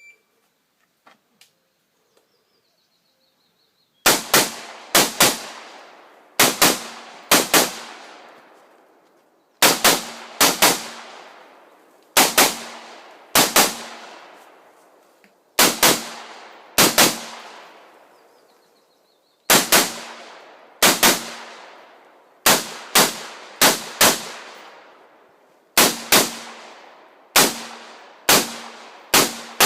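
A shot-timer start beep, then about four seconds later rifle fire in quick pairs (double taps), pair after pair every second or so, each shot followed by an echo.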